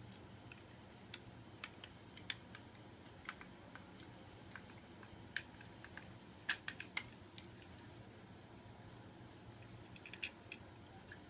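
Scattered light clicks and taps of small fan parts and screws being handled during reassembly, with a quick cluster of louder clicks a little past the middle.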